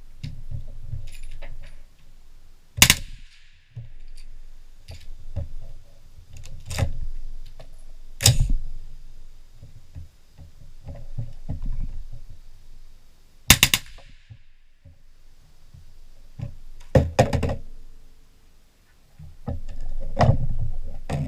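Suppressed AR-15 rifle fired through a bump fire stock: single shots a few seconds apart, then a quick pair, then a short rapid burst of several shots. Low thuds between the shots.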